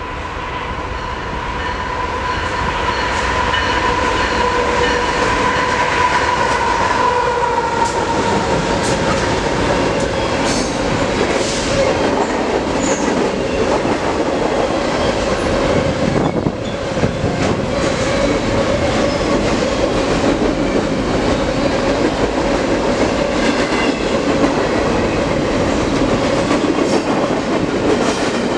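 Double-stack intermodal freight train passing close by, growing louder over the first few seconds as it comes alongside, then a steady rumble of the container cars. A steady tone dips slightly in pitch about seven seconds in, and wheels click over the rail joints throughout.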